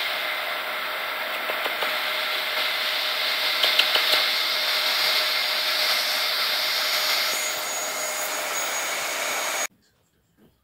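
Vacuum cleaner running with a steady whine, then stopping abruptly about a second before the end.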